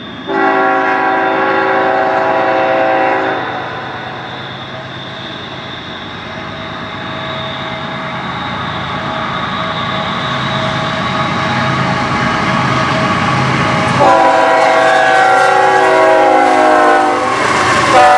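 Norfolk Southern diesel freight locomotive's multi-note air horn sounding a long blast, followed by the engines' rumble growing louder as the train approaches. The horn sounds again for about three seconds near the end, and briefly once more as the locomotives reach the grade crossing.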